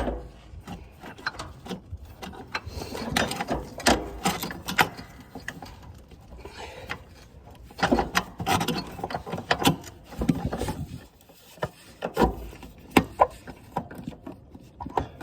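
Irregular metallic clanks, knocks and scrapes of riding-mower parts being worked by hand as a stuck part under the mower is wrestled free.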